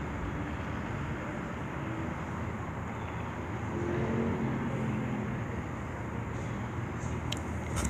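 Steady outdoor background noise: a low rumble and hiss like distant traffic, swelling a little around the middle, with a few light clicks near the end.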